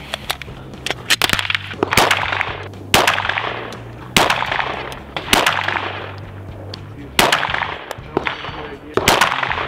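A series of single 9mm gunshots from a Glock pistol fitted in a CAA MCK micro conversion kit, fired one at a time, about a second apart, each trailing off in a short ringing echo.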